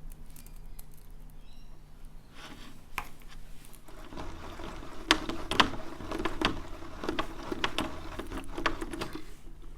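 Hand-cranked plastic slime mixer being turned, giving irregular clicks and knocks that get busier and louder about four seconds in, with wet sounds of the mix inside. The slime is failing to form: only partly activated, hard lumps in runny water.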